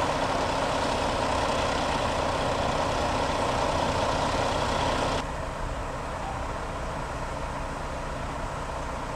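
Diesel engines of parked fire engines idling, a steady noise; about five seconds in it drops suddenly to a quieter level.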